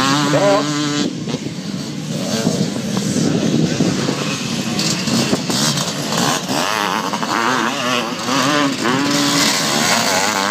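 Pre-1990 vintage motocross motorcycles racing past one after another on a dirt track, their engines revving up and down as riders accelerate through a bend.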